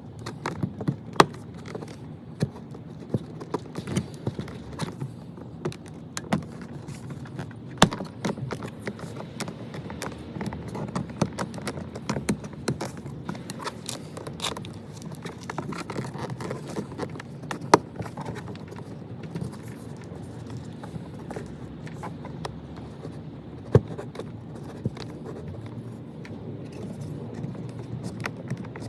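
Scattered sharp clicks, taps and knocks of plastic car door trim and hand tools being worked, with a few louder knocks, over a steady low background rumble.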